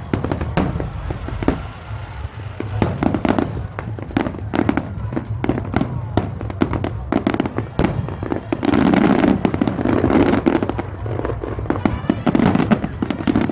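Aerial fireworks shells bursting in quick succession, a steady run of booms and sharp cracks. The bursts come thickest from about two-thirds of the way in.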